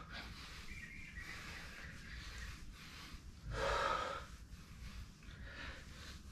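A man breathing hard while doing squats, with one louder, noisy breath lasting under a second about three and a half seconds in and fainter breaths around it.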